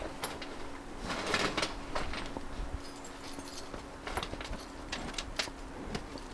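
Irregular clinks and knocks of small scrap metal pieces being handled and set down, some with a brief high ringing, busiest about a second in.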